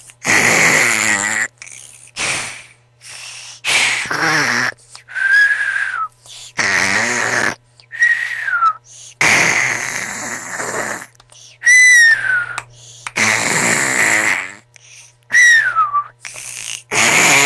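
A person snoring loudly, a rasping breath every few seconds, each followed by a short high whistle falling in pitch.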